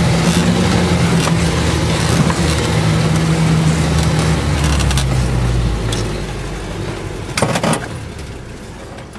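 Off-road vehicle's engine running at low speed on a rough forest track, with the cab rattling and jolting over the ruts. About six seconds in the engine note drops away, and a brief clatter follows near the end.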